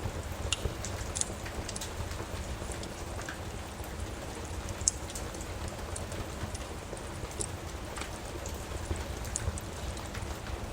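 Steady rain on a surface, with scattered sharp pops and clicks from a crackling fireplace.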